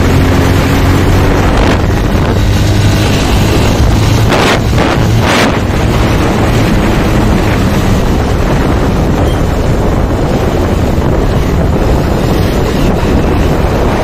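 Wind buffeting a motorcycle rider's microphone at road speed, with the Bajaj Pulsar's engine running underneath. The wind noise is loud and steady, with two brief louder rushes about halfway through.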